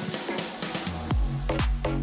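Electronic dance music; about a second in, a heavy bass kick drum comes in at about two beats a second.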